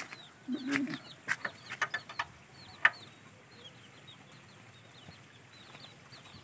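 Chicks peeping over and over in short falling notes, with a low cluck about half a second in. A few sharp clicks and knocks come in the first three seconds.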